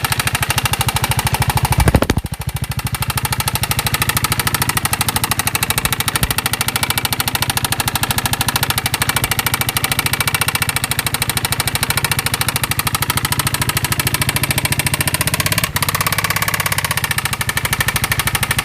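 Piaggio 250 scooter engine, a single-cylinder four-stroke, running steadily with a rapid, even knocking that the owner presents as an engine knock. A brief louder noise breaks in about two seconds in.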